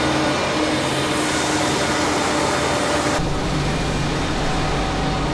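CLAAS Lexion 8900 combine harvester running at working speed with its unloading auger engaged: a steady machine drone with a strong hiss and a few steady hum tones. About three seconds in, the sound switches abruptly to a deeper drone with less hiss.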